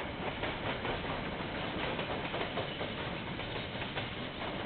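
Train wagons rolling past on the rails: a steady rumble with faint irregular clicks from the wheels. Heard through a security camera's microphone, which cuts off the high end.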